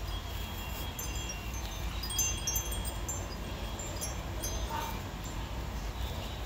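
Metal wind chime tinkling in the breeze: scattered high ringing notes at several pitches, thickest in the middle, over a low rumble of wind on the microphone.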